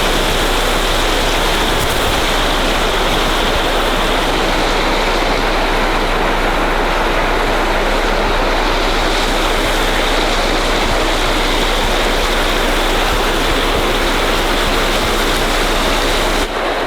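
Water gushing loudly and steadily from a broken residential water main.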